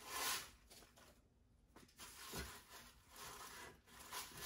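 Soft rustling and handling of a cardboard subscription box and its packaging as the box is pulled over, in short scuffs with a light knock about halfway through.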